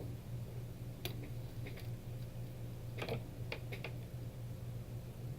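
Scattered light clicks and taps of small parts and tools being moved about on a workbench, a few isolated ones then a quick cluster about three seconds in, over a steady low hum.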